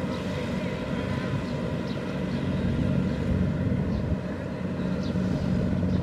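Kubota DC-70 Plus rice combine harvesters running steadily while harvesting, a continuous low diesel engine drone.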